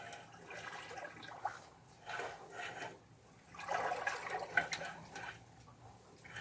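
Water sloshing and splashing in uneven surges.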